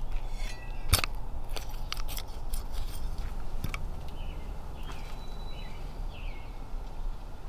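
A metal hand trowel digging and scraping in garden soil, a sharp knock about a second in and then a run of clicks and scrapes; from about halfway on, a small bird chirps several times over a low steady outdoor rumble.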